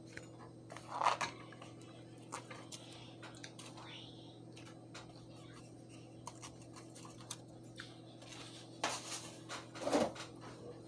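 Eating at a table: a metal fork clicking and scraping on a plate, with chewing and mouth sounds, over a steady low electrical hum. A short louder mouth or voice sound comes about a second in and again near the end.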